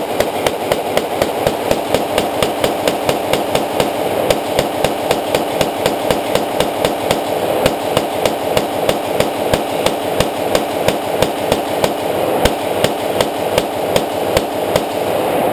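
Glock 19 9 mm pistol fired semi-automatically in a steady, unbroken string of about three shots a second, emptying a 50-round drum magazine without a stoppage.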